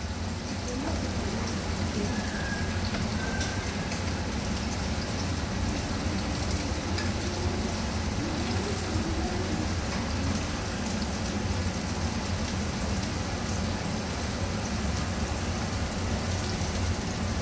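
Goat udder pieces deep-frying in a pot of hot oil: a steady sizzle with many fine crackles and pops.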